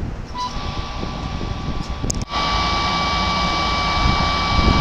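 Embraer EMB-314 Super Tucano single-turboprop aircraft flying past in formation: a steady engine drone over a low rumble, with a steady high whine that comes in about half a second in. The sound drops out for an instant a little over two seconds in, then returns slightly louder.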